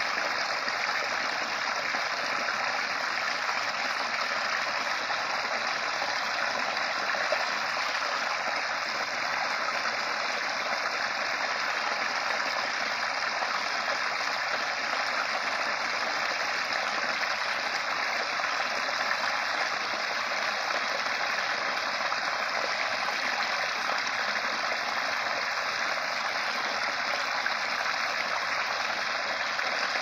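Small waterfall: a shallow creek spilling over a rock ledge into a foamy pool, a steady splashing rush of water.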